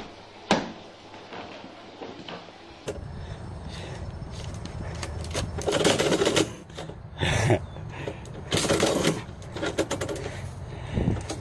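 Metal door mail slot flap clacking and envelopes rustling as mail is pushed through the slot and shoved back out, in several loud bursts of rustling and clatter.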